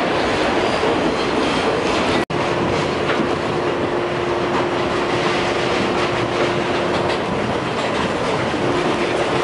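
New York City subway car running on the tracks, heard from inside the car: a steady rumble of wheels and car body. The sound drops out for an instant about two seconds in, and after that a steady hum runs through most of the rest.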